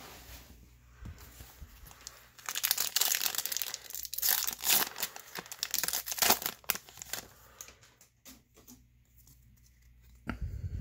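Baseball card pack's foil wrapper torn open and crinkled by hand, a few seconds of dense crackling, followed by quieter rustling as the cards are handled. A dull thump near the end.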